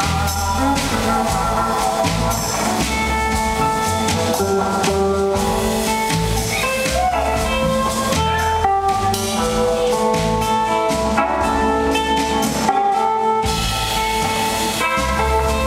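Live blues-rock band playing: an electric guitar takes the lead in long held notes that glide in pitch, over bass and drum kit.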